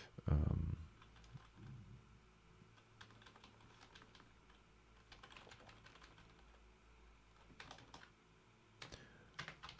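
Typing on a computer keyboard: scattered, irregular keystroke clicks in small clusters. A dull low thump comes about half a second in.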